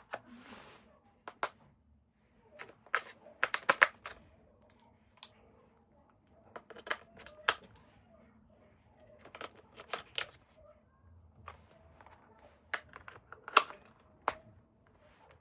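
Hands handling a toy and its plastic packaging: irregular clicks, taps and crinkles, some in quick clusters.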